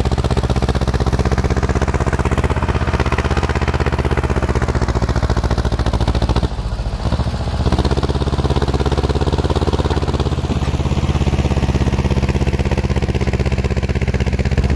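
Ursus C-330 tractor's two-cylinder diesel engine running steadily as it pulls a subsoiler through the ground, with a brief dip in level about six and a half seconds in.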